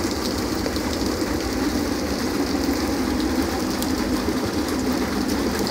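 Hail and heavy rain coming down steadily, the hailstones striking as a dense patter of small ticks over a constant rushing noise.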